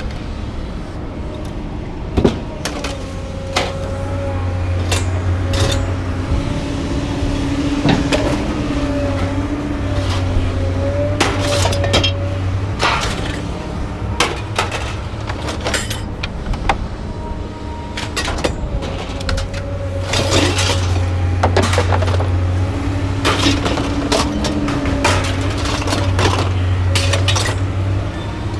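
Scrap metal clanking and crashing as pieces are thrown off a truck onto a scrapyard pile, with a machine droning and whining in two long stretches.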